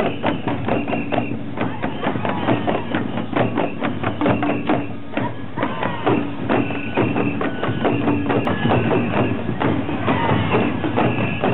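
Oeshiki procession music: uchiwa daiko fan drums and small hand gongs beaten in a fast, unbroken rhythm, with a flute playing held high notes over it.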